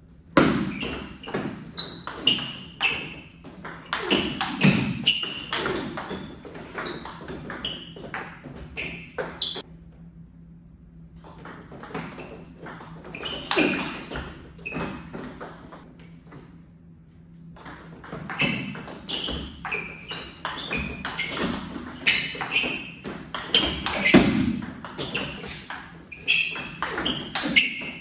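Table tennis rallies: the ball clicks sharply off paddles and the table in quick back-and-forth runs. There are three stretches of play, with short quiet gaps after about ten seconds and about sixteen seconds.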